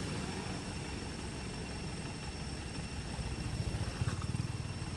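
Steady low outdoor rumble with a rapid flutter in it, growing a little louder in the last two seconds, with faint steady high-pitched tones above it.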